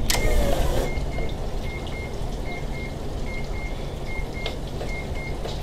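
Electronic warning chime beeping: short high beeps in quick pairs, repeating steadily about once a second. A brief rush of noise comes right at the start.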